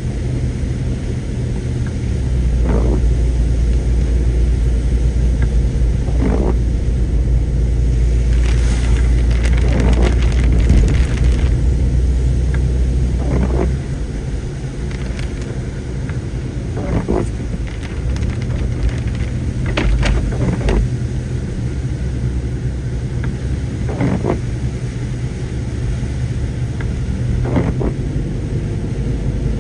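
A car driving on a wet road, heard from inside the cabin: a steady engine and tyre rumble, heavier for the first half, with short thumps every few seconds.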